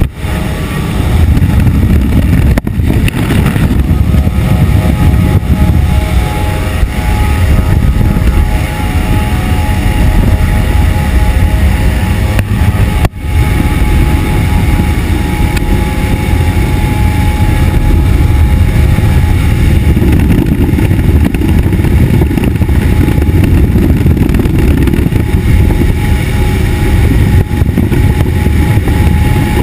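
Loud steady rush of wind at the open jump door of a de Havilland Twin Otter in flight, with the drone of its turboprop engines and propellers carrying a few steady tones. The sound drops out for an instant twice, once early and once about thirteen seconds in.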